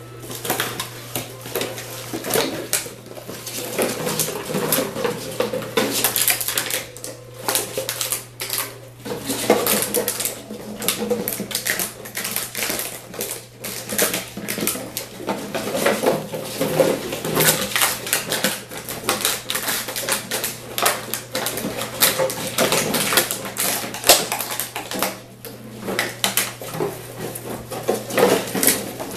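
Empty plastic water bottles clattering, clicking and crinkling in a cardboard box as Sealyham Terrier puppies knock them about and climb over them: a dense, irregular run of light plastic knocks and clicks.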